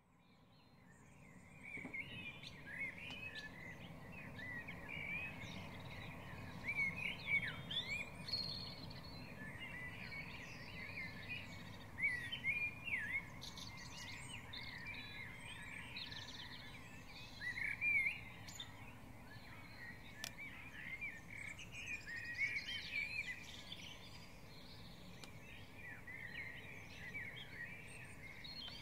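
Springtime dawn chorus: many songbirds singing and chirping at once, overlapping calls with no pauses. It fades in over the first two seconds, over a low steady rumble.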